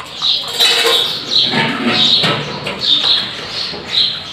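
Birds chirping, a short high call about once a second, over the scraping and clicking of a small screwdriver prising at a portable Bluetooth speaker's plastic casing.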